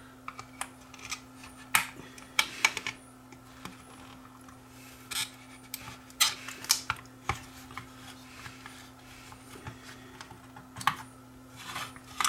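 A screwdriver and fingers prying at the plastic clips of a smoke detector to free its circuit board: irregular small clicks, scrapes and sharper snaps of metal and plastic, with a few louder clicks at uneven intervals.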